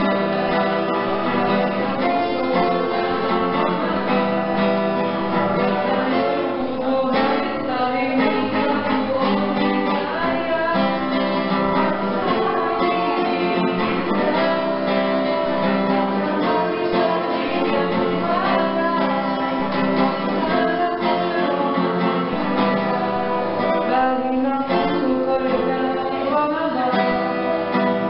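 Acoustic guitar played with a man singing along into a microphone.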